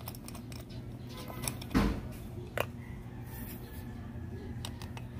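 Clicks and knocks of a scooter's pulse fuel pump being opened by hand, with one louder knock or scrape about two seconds in and a sharp click shortly after.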